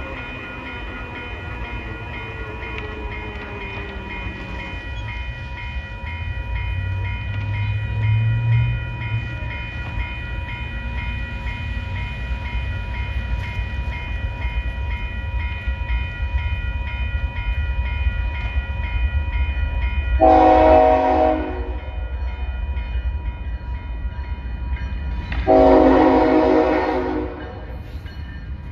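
BNSF diesel freight locomotive rumbling steadily, with a steady ringing above it. About 20 seconds in its multi-chime air horn sounds a shorter blast, then a longer one about five seconds later.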